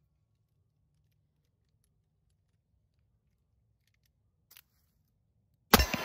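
Mostly quiet with a faint click about four and a half seconds in, as the revolver's reloaded cylinder is closed, then a J-frame .38 Special snub-nose revolver fires one loud shot near the end, ringing on after it.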